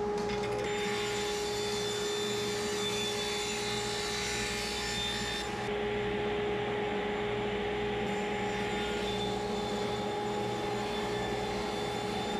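Table saw running with a steady whine while plywood panels are crosscut on a sliding sled.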